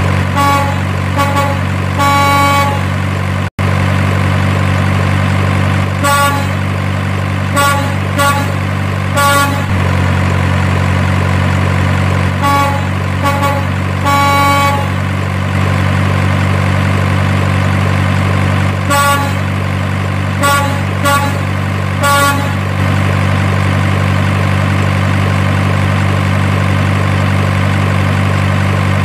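Truck engine running with a steady low drone, with short pitched horn toots in four bursts of several toots each spread through the stretch. There is a brief dropout in the sound about three and a half seconds in.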